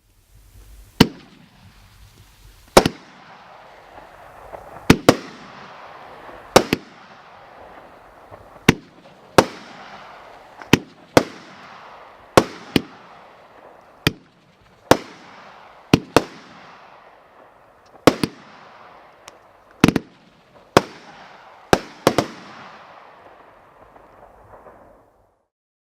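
A 200-gram consumer fireworks cake (Cutting Edge Live Wire) firing its shots in sequence: about twenty sharp bangs, one to two seconds apart and some in close pairs, over a steady hiss. It ends with the last shot about 25 seconds in.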